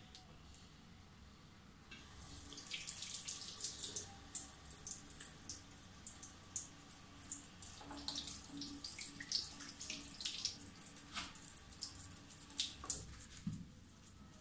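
Boar-bristle shaving brush working wet shaving-soap lather, a dense, irregular run of soft wet crackles and swishes starting about two seconds in.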